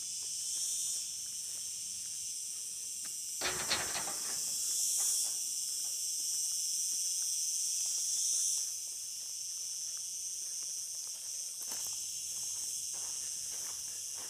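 Insects shrilling steadily in high-pitched chorus, swelling louder a few times. A short burst of scuffs, like footsteps, comes about three and a half seconds in.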